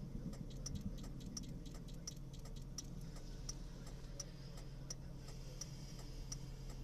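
Vehicle's indicator flasher ticking steadily, a louder and a softer click alternating about three times a second, over a low steady hum.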